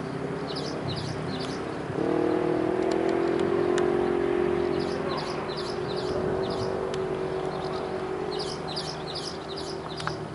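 Off-road rally 4x4's engine running hard, its note stepping up about two seconds in and then holding steady. Small birds chirp in quick repeated calls above it.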